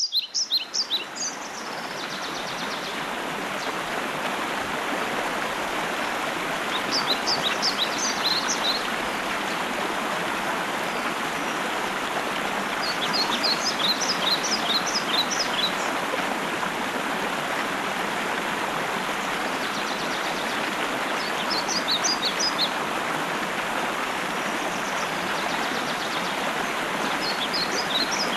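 Steady rush of a running stream, with a songbird repeating a short song of quick high notes about every six to eight seconds.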